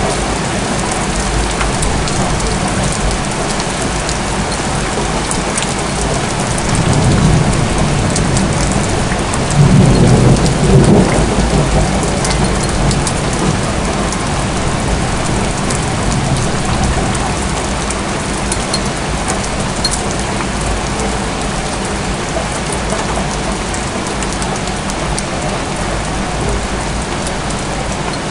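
Steady rain from a thunderstorm, with rolling thunder: a low rumble about seven seconds in, then a louder peal around ten seconds in that dies away over a couple of seconds.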